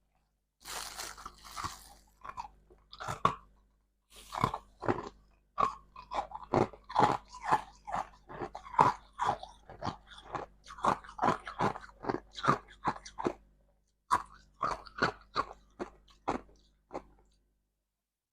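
Ice being bitten and chewed close to the microphone. A first bite starts about half a second in, then comes a long run of sharp crunches, about two or three a second, with a brief pause near the end.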